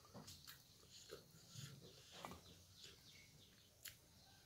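Faint eating sounds: chewing and mouth noises with scattered small clicks and crackles. Near the end a piece of bajra bhakri flatbread is torn by hand, with one sharper crackle.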